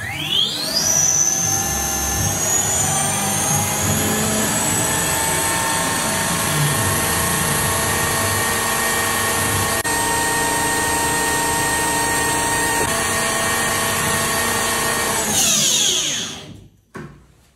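Electric scooter's rear hub motor spinning the rear wheel: a whine that rises quickly at the start, holds steady for about fifteen seconds, then falls away as the motor winds down near the end.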